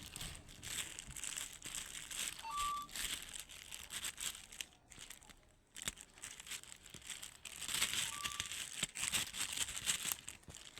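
Irregular crinkling and rustling that keeps on with a short lull about halfway through. Two brief, faint tones are heard about two and a half and eight seconds in.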